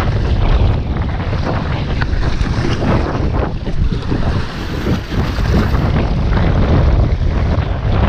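Strong gusting wind buffeting the microphone, a loud, steady low rumble with irregular gusts.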